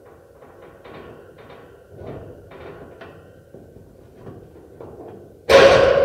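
Wire-mesh metal cage being knocked and rattled: a run of light metallic knocks and rattles, then about five and a half seconds in a loud metal bang that leaves a long, ringing metallic tone.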